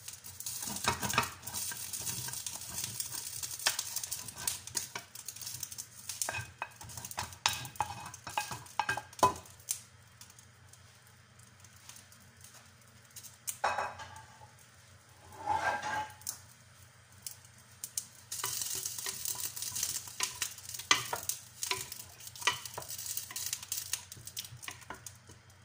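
Wooden spoon stirring beef stew in a ceramic-coated pot, clicking and scraping against the sides over a sizzle from the hot pot. The stirring pauses for several seconds about halfway through, then starts again.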